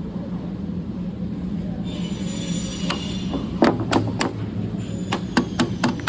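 Glazing beads being knocked into place in a window frame: about eight sharp taps in the second half, several in quick succession, over a steady low hum.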